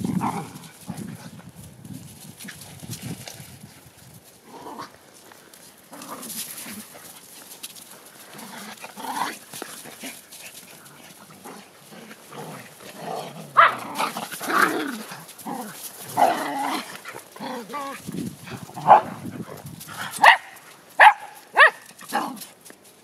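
Shetland sheepdogs playing as a pack, with scattered yips and grumbling calls, then a quick run of sharp barks near the end.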